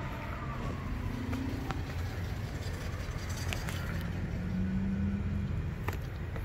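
Steady low rumble of motor vehicles, with a faint engine hum that swells about a second in and again around four to five seconds in, and a few light clicks.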